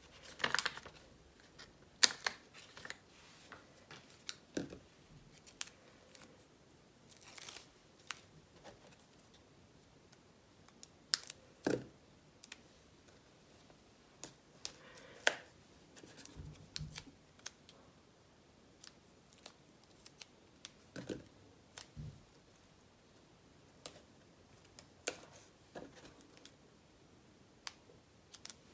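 Small craft scissors snipping foam adhesive Dimensionals off their sheet, heard as scattered short snips and clicks with soft paper handling between them and quiet gaps.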